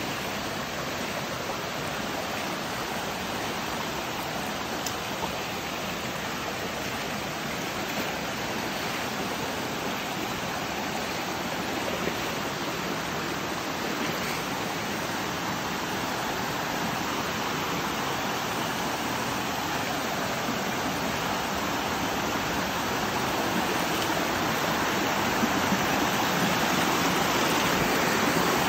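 Water of a shallow rocky stream rushing and splashing over stones and small cascades, a steady rush that grows gradually louder toward the end.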